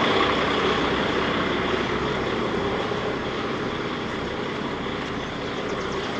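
Heavy diesel engine running steadily, growing slightly quieter over the seconds.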